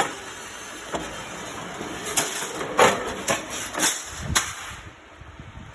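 Steel-cutting machine running with a steady high-pitched noise, punctuated by several sharp metallic knocks; the running noise stops about five seconds in.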